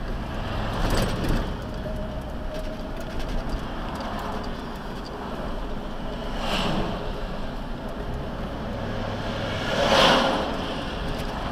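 Road and traffic noise heard from inside a moving car's cabin, with vehicles swishing past close by three times; the loudest pass, near the end, is a large dump truck going by alongside.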